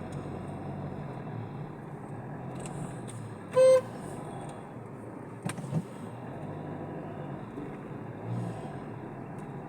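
Steady low hum of a car moving slowly, with one short, loud car-horn toot about three and a half seconds in.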